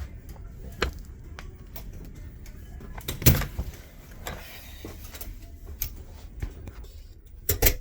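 Scattered clicks and knocks over a low rumble, the loudest knock about three seconds in and a quick pair near the end.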